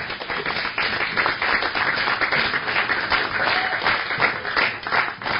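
Audience applauding: many hands clapping densely, swelling within the first second and then holding steady.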